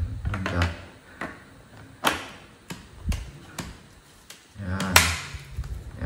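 Hard plastic parts of a cordless stick vacuum clicking and knocking as the dust bin and cyclone unit is fitted onto the motor and handle body. It is a string of sharp clicks, the loudest about two seconds in and near the end.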